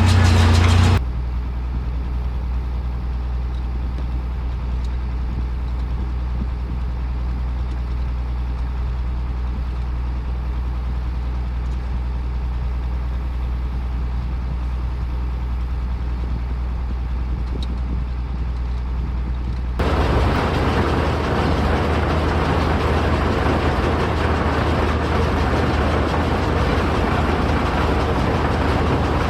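Tractor engine running steadily while baling hay. The sound drops abruptly about a second in and jumps back up, noisier, about twenty seconds in.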